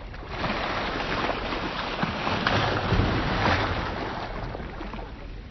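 Sea water rushing and splashing along the side of a moving jet ski. It builds in the first moment, swells over the next few seconds, then fades.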